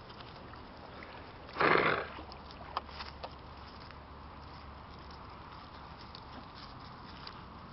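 A spaniel gives one short, loud, rough snort about two seconds in, followed by a few faint clicks.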